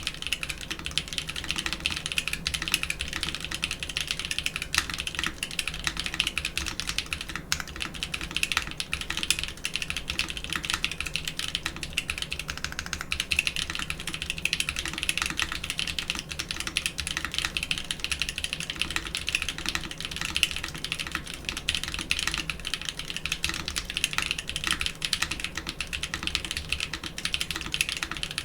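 Fast continuous typing on a mechanical keyboard fitted with doubleshot keycaps, a dense run of key clacks with no pauses, picked up by an Audio-Technica AT897 shotgun microphone.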